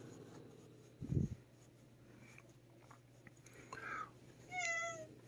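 A cat gives two short cries near the end: a brief squeak, then a clearer meow that falls slightly in pitch. Before that it is quiet apart from a soft low sound about a second in.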